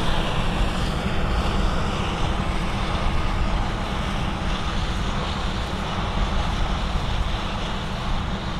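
Combine harvester running steadily close by, with wind buffeting the microphone.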